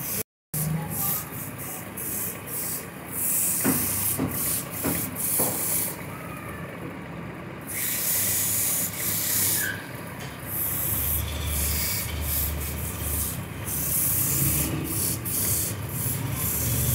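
Woodturning lathe with a tool rubbing against the spinning wood: a steady hiss that breaks off and changes abruptly several times. A low hum from the lathe comes in about eleven seconds in.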